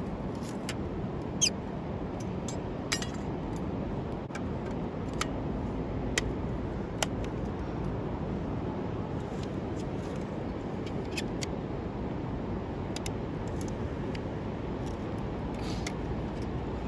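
Small wood fire in a Firebox camp stove, crackling with scattered sharp pops over a steady low rumble.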